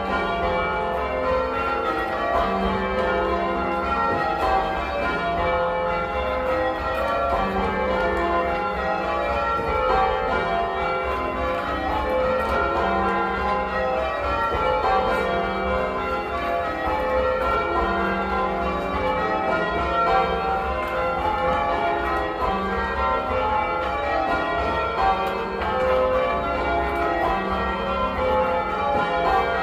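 Change ringing on a 1954 Gillett and Johnston ring of eight church bells, the bells striking one after another in a steady, even rhythm without a break. They have a mellow, boomy tone.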